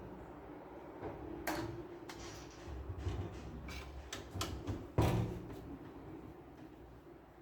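Knocks and clicks of plastic printer parts being handled: a sharp knock about a second and a half in, smaller clicks and a low rumble after it, and the loudest clunk about five seconds in.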